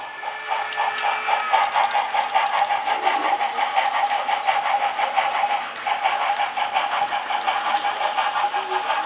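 Model railroad locomotive running on the layout: a steady tone with a rapid, even pulsing, which cuts out briefly about six seconds in and then picks up again.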